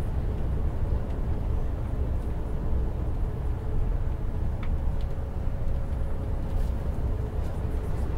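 Steady low rumble of a coach's engine and tyres on the road, heard from inside the moving bus, with a couple of faint clicks near the middle.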